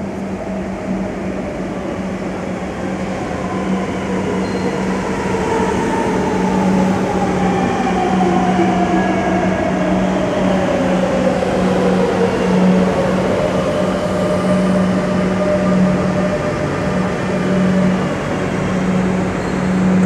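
Madrid Metro train pulling into an underground station and braking to a stop, its rumble growing louder as it arrives. Its motor whine falls steadily in pitch as it slows, over a steady low hum.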